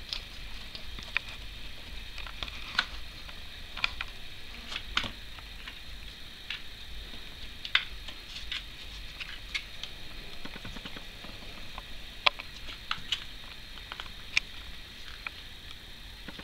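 Scattered sharp clicks and taps, roughly one every second and irregular, from a kitten playing with its paws on cardboard and a plastic ball-track toy, over a faint steady high hiss.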